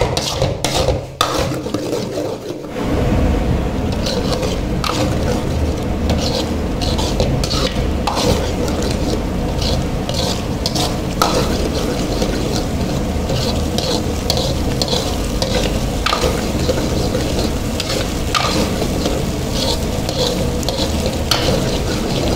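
A steel spoon stirring thick kadai paneer gravy in a pan, scraping and clinking against the pan. A few separate clinks come first, then a steady sizzle of the cooking gravy sets in about three seconds in and carries on under the spoon's strokes.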